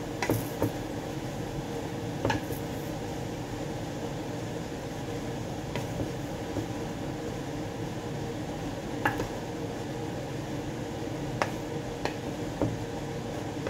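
A steady hiss of food cooking on the stove, broken now and then by sharp clinks of utensils on plates and pans.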